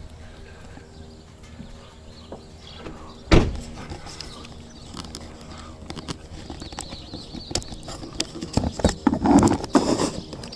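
A single loud thump about a third of the way in, a pickup truck's door being shut, over a faint steady hum. Near the end comes a cluster of knocks, clicks and scrapes as a camera is handled on the truck's hard tonneau cover.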